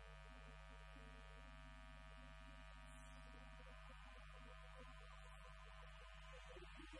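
Mixed chamber choir singing very softly in sustained notes, nearly buried under a steady electrical mains hum.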